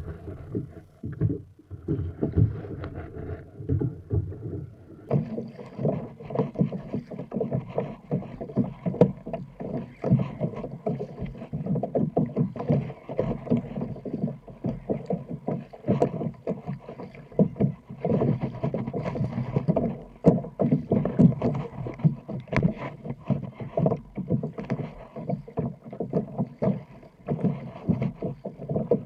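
Kayak being paddled through choppy water: irregular splashes of the paddle blades and water slapping against the kayak's hull, growing fuller about five seconds in.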